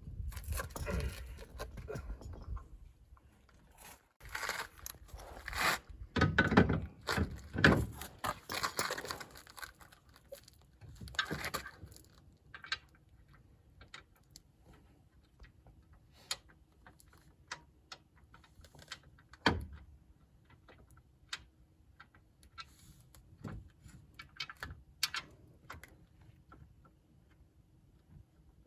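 Metal hardware and parts being handled: clinks, scrapes and knocks, busy for the first dozen seconds. After that, occasional light clicks and ticks, with one heavier thud about two-thirds of the way in.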